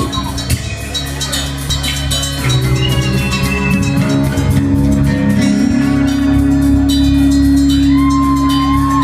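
Live rock band playing: strummed acoustic guitar over bass guitar and a drum kit, with a held melody line coming in about eight seconds in.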